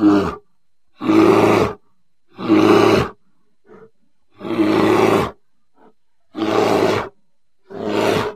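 A bear roaring in a series of six short roars, each under a second long, separated by silent pauses. There are a couple of faint short grunts in the gaps.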